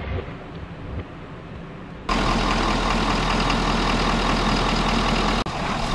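Ford F-250 pickup's engine idling steadily. It cuts in suddenly about two seconds in, after a quieter low hum, and cuts off abruptly shortly before the end.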